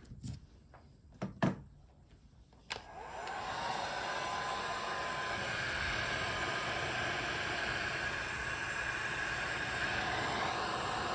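A few handling knocks, then a handheld heat gun switches on about three seconds in and runs with a steady blowing hiss. It is being used on the freshly soldered oxygen-sensor wire splice.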